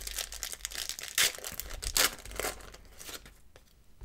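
Paper-and-foil wrapper of a Pro Set 1990/91 football card pack being torn open by hand, with crinkling crackles. The loudest tears come about a second in and again about two seconds in.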